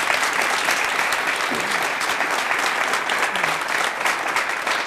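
Studio audience applauding steadily: dense, even clapping from many hands.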